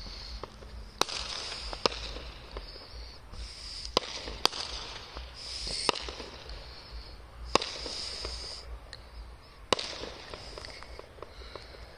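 Distant aerial fireworks going off: about seven sharp bangs at uneven intervals, over a high hiss that comes and goes.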